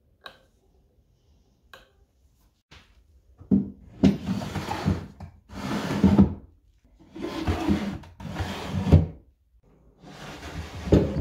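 Wooden drawers of an antique washstand being slid open and shut, wood rubbing along the runners about five times with a knock near the end, after a few light clicks.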